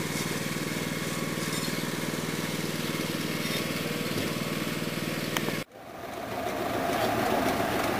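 Engines of road-works machinery running steadily. About two-thirds through, the sound cuts off abruptly and is replaced by a backhoe loader's engine running closer by.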